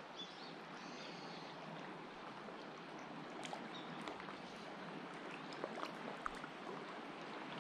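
Faint, steady wash of water with scattered small clicks and ticks.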